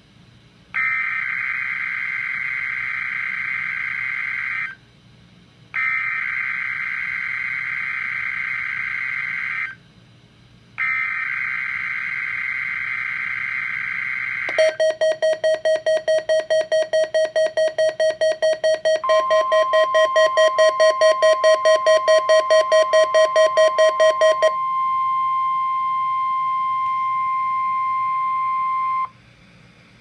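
NOAA Weather Radio Required Weekly Test on a Midland weather alert radio: three harsh, buzzing bursts of SAME digital header data, separated by short gaps. Then comes the radio's alert beeping, about three or four beeps a second. Partway through, the steady 1050 Hz warning alarm tone joins it and holds on alone for a few seconds after the beeping stops.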